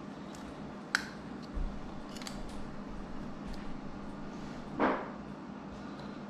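Small clicks and knocks of a new honey container's cap being opened and its seal popped off, with a short scraping rasp about five seconds in. A steady low hum runs underneath.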